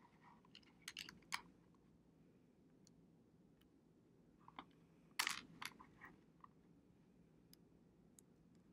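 Small plastic algebra tiles being set down one at a time on a paper worksheet: scattered light clicks and taps, with a louder cluster about five seconds in.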